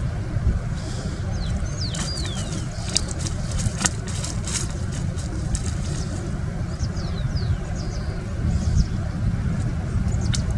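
Steady low rumble, with birds giving short falling chirps now and then and a few sharp clicks in the first half.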